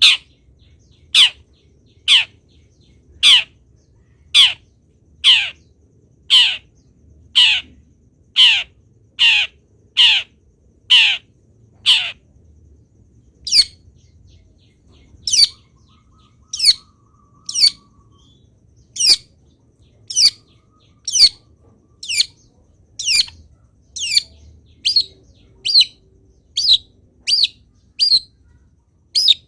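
Long-tailed shrike (cendet) training recording: a short, sharp call falling in pitch, repeated about once a second. The calls turn thinner after the first dozen and come a little faster toward the end.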